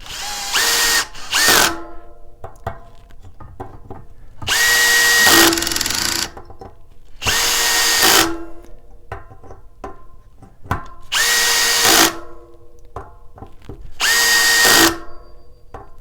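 Cordless power driver running the Torx bolts of a six-bolt disc brake rotor into the hub, in six separate runs of roughly one to two seconds, each a motor whine that rises quickly and then holds steady. Light clicks and handling sounds fall between the runs.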